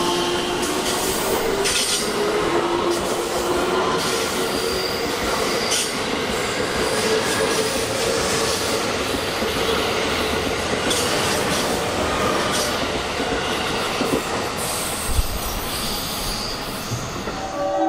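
Electric commuter train moving along the platform: a steady running rumble with a humming motor tone through the first half and sharp clicks from the wheels over rail joints.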